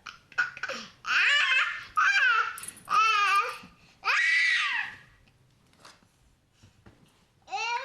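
An 18-month-old baby boy laughing in a run of high-pitched bursts about a second long each, then a pause of a couple of seconds before another burst starts near the end.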